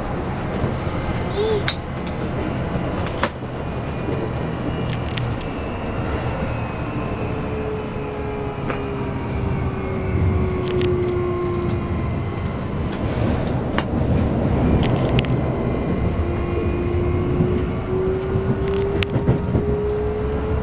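Running sound inside a Keikyu New 1000 series (1800 and 1890 subseries) electric train: steady rumble of wheels on rail with a few sharp clicks, and the whine of its Toyo inverter-driven traction motors. The motor whine falls in pitch around the middle, drops away, and comes back rising in pitch toward the end.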